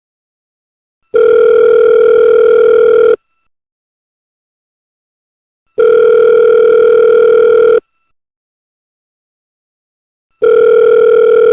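Telephone ringback tone as heard by the caller: a steady, loud tone sounding three times, about two seconds on and two and a half seconds off, the third ring cut off by the end.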